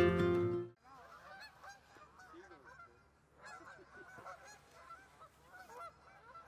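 Guitar music that cuts off abruptly under a second in, then many faint, short, overlapping bird calls.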